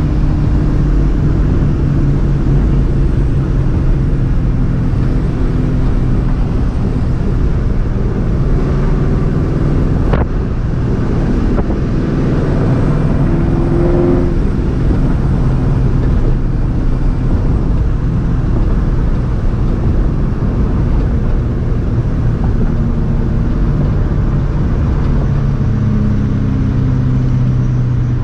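Straight-piped, Vortech-supercharged 2004 Mustang GT's 4.6-litre two-valve V8 running steadily while the car cruises, a loud low exhaust drone with only small changes in pitch. There is one brief click about ten seconds in.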